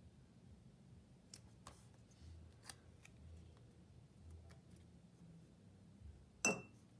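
Faint paper sounds of stickers being peeled from a backing sheet and pressed onto planner pages: light rustles and small clicks, with one sharper tap about six and a half seconds in.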